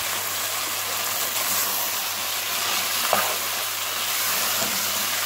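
Mutton keema and fried potato cubes sizzling in oil in a non-stick kadhai as they are fried and stirred with a spoon, a steady hiss with one louder stir-stroke about three seconds in.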